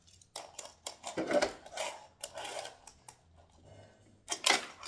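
A plastic fingerboard and plastic skatepark pieces clicking, clacking and scraping as they are handled and set down, with a few louder clacks near the end.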